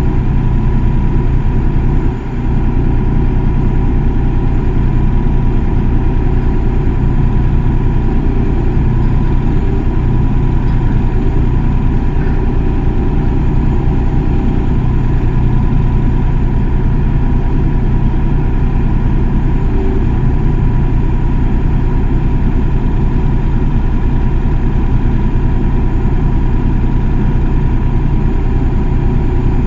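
Excavator's diesel engine running steadily at a constant pitch, with a steady whine on top, dipping briefly about two seconds in.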